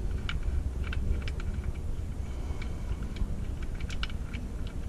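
Irregular light metallic clicks and taps of a wrench being fitted and worked on an oil drain plug under a car, over a low steady rumble.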